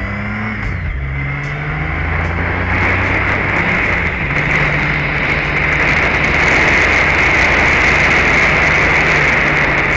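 Honda Gold Wing GL1800's flat-six engine running under way as the motorcycle gathers speed, its low hum shifting in pitch early on. Wind and road rush over the bike-mounted microphone builds and becomes the loudest sound in the second half.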